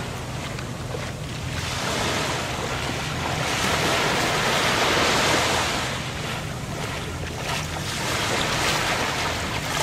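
Sea surf washing onto a sandy beach, with wind buffeting the microphone; the wash swells about halfway through and again near the end.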